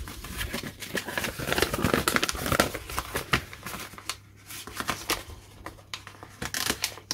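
Folded paper instruction sheet rustling and crinkling as hands unfold and flatten it. It is busiest in the first few seconds, with a quieter lull about four seconds in.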